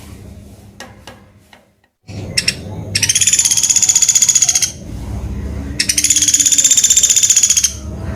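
Sunda pygmy woodpecker (pelatuk beras) giving two rapid, high-pitched trilling calls, each about two seconds long, a second apart. A few sharp clicks come before them.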